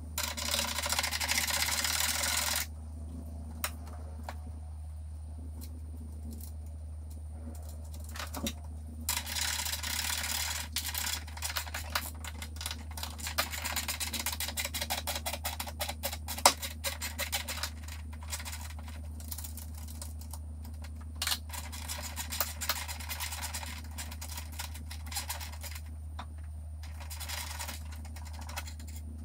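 Ratchet wrench clicking in long rapid runs as a nut on the strut tower brace mount is worked under the hood, with pauses between runs; the nut strips. A steady low hum runs underneath.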